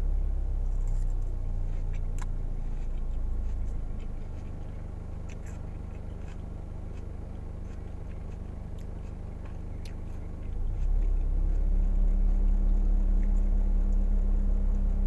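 Car engine idling, heard from inside the cabin: a steady low hum that gets louder about eleven seconds in. A few faint clicks and crunches of someone chewing salad come over it.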